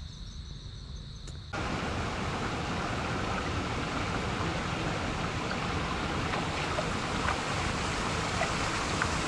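Mountain spring water flowing over rocks, a steady rush that starts suddenly about a second and a half in. Before it, a low wind rumble and a thin steady insect buzz.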